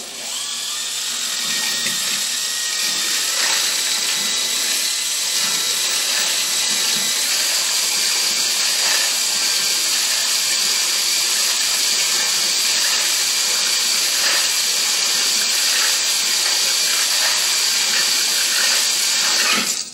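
Electric drill at its lowest speed spinning a cylinder hone inside a Briggs & Stratton 11 hp engine cylinder, the oiled stones grinding against the cylinder wall. It is a steady grinding hiss with a high motor whine that rises slightly in pitch about seven seconds in, and it stops just at the end.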